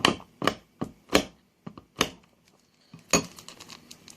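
About six sharp, irregularly spaced taps and knocks while the ramen seasoning packet is being emptied out.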